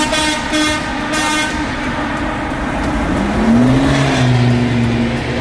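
A car horn honks three short times in the first second and a half. Then a low engine drone rises and holds steady, heard from inside a vehicle driving through a road tunnel.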